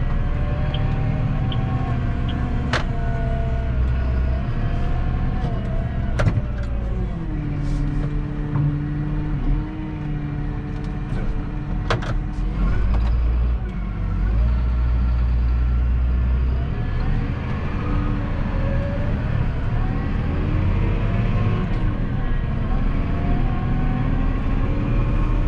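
Massey Ferguson 7718S tractor's six-cylinder diesel engine running while driving on the road, heard inside the cab; engine speed drops about seven seconds in and rises and falls again near the end. A few sharp clicks sound over it.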